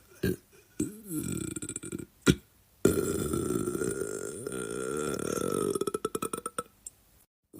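A man burping: a few short burps, then one long drawn-out burp of about four seconds that breaks up into a rapid rattling pulse as it ends.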